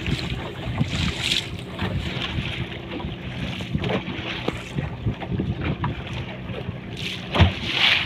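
Small wooden motorboat's engine running steadily at trolling speed, with water splashing along the hull and wind buffeting the microphone; a louder splash or gust comes near the end.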